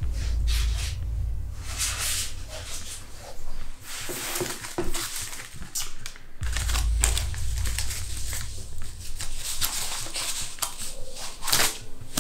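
Rustling and crinkling handling noise: a run of short, sharp crackles over a low steady rumble that drops out for a couple of seconds in the middle.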